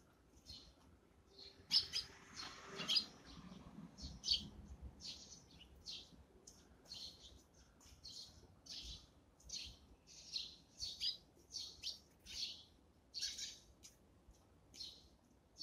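Eurasian tree sparrows chirping: short, high chirps repeated every half second to a second or so. A brief rushing noise rises under the chirps about two seconds in and fades by about four seconds.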